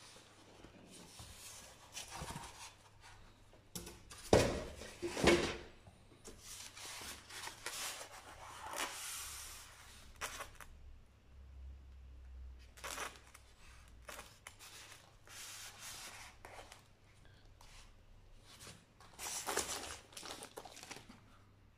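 Cardboard box and packaging being handled and opened: rustling and scraping, with two sharp knocks about four and five seconds in. Near the end the plastic-wrapped computer rustles and scrapes as it is lifted out of its polystyrene tray.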